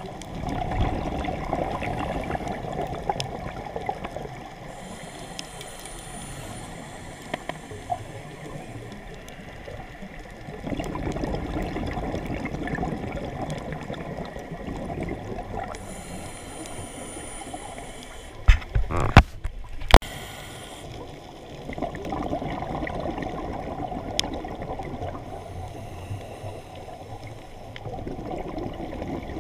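Scuba diver breathing through a regulator, heard underwater: a short high hiss on each inhale, then a longer gurgling rush of exhaled bubbles, about every ten seconds. A few sharp knocks come about two-thirds of the way through.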